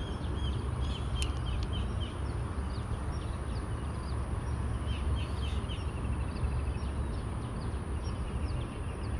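Small birds chirping, many short repeated chirps, over a steady low rumble. About six seconds in there is a brief quick run of ticks.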